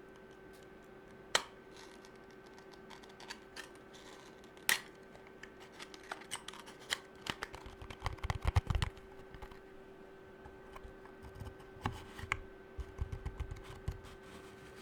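Fingernails tapping quickly on objects close to the microphone: sharp clicks in uneven runs, densest around the middle and again near the end, mixed with a few duller low thuds.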